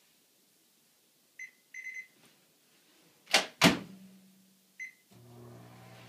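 Over-the-range microwave oven being started: a few short keypad beeps, two loud clacks, one more beep, then the oven starts running with a steady hum about five seconds in.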